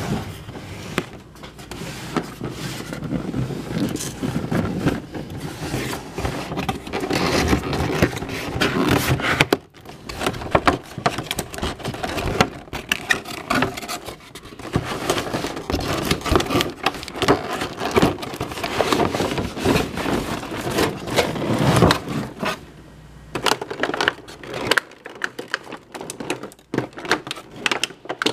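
Cardboard box and plastic packaging being handled and opened: continuous scraping and rustling with many clicks and knocks, thinning to scattered clicks near the end.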